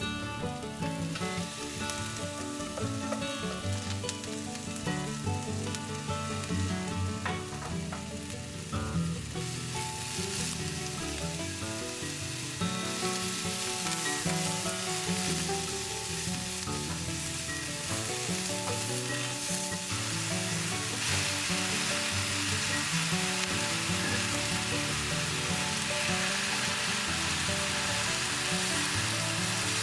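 Ingredients for yaki udon sizzling as they are stir-fried in a pan, with the sizzle growing louder about ten seconds in and again near twenty seconds. Soft background music plays underneath.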